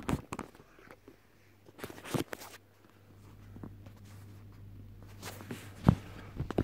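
Handling noise from the recording phone being picked up and moved: scattered knocks and rustles, the loudest a sharp knock about six seconds in, over a low steady hum.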